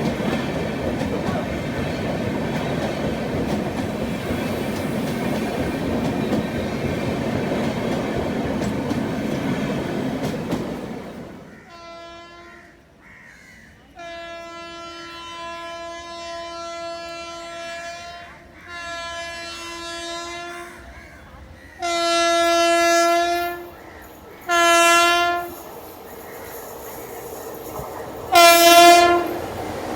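A passing train's wheels rumble and clatter over the rail joints, fading out about eleven seconds in. Then an Indian Railways electric locomotive horn sounds one steady note in a series of blasts: a brief toot, two long blasts, then three shorter, louder ones, the last near the end.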